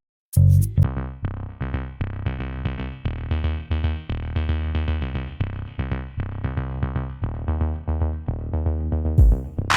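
Electronic background music with a steady synthesizer beat and heavy bass, starting after a brief silence.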